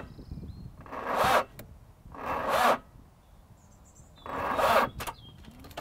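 A taxi engine being cranked on the starter in three short bursts about a second apart, and never catching. The engine has been run on milk and other liquids in place of oil, and it is failing to start.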